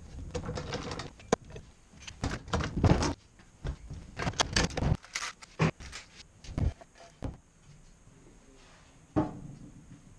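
Bar clamps being loosened and lifted off a glued-up wooden cutting board: a run of metal clanks, clicks and rattles from the clamp screws, jaws and bars, which dies down after about seven seconds, with one more thump about nine seconds in.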